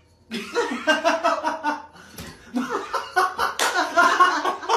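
A person laughing hard in quick repeated bursts, starting about a third of a second in.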